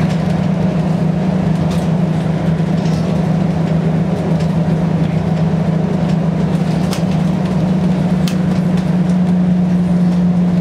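Inside a moving city bus: the diesel engine's steady low drone with tyre and road noise.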